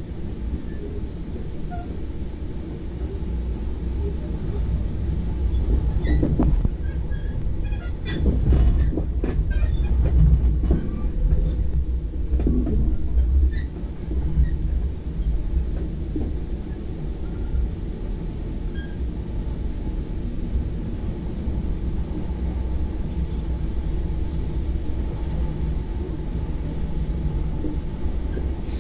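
Inside a moving Virginia Railway Express Gallery IV bilevel commuter car: the steady low rumble of the car running on the rails. A louder spell of sharp clicks and knocks comes in the first half.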